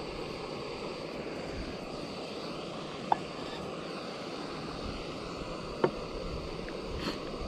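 Steady rushing of a backpacking canister stove burning under a pot of water. About three seconds in, a sharp knock with a short metallic ring as a titanium cup is set down on the wooden table. About three seconds later a second sharp knock comes as the plastic espresso maker is set down.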